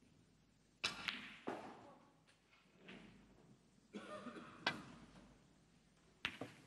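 Snooker shot: a sharp click about four and a half seconds in as the cue strikes the cue ball, then another ball click near the end. Two fainter knocks come about a second in.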